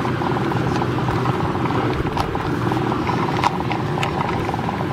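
Footsteps tapping on pavement over the steady hum of city street traffic.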